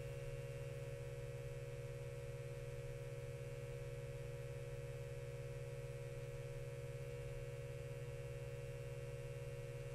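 Steady low electrical hum with a faint higher tone over it, unchanging throughout.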